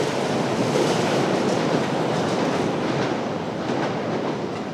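London Underground S Stock train running past on the track, its wheels clattering over the rails, the sound easing off toward the end as it moves away.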